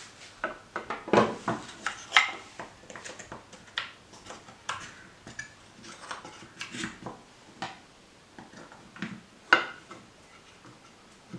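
A wooden knife box and a folding knife being handled and set up as a display stand: irregular light knocks and clicks of wood and metal, with a few louder knocks.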